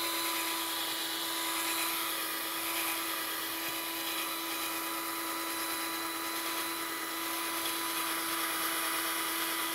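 Household drill running at a steady speed with a sanding pad pressed to a plastic headlight lens: a constant motor whine over an even sanding hiss, sanding the haze off the lens.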